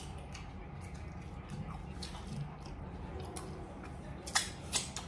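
Quiet eating sounds at a table: chewing and mouth noises with scattered small clicks, the two sharpest a little past four seconds in, about half a second apart.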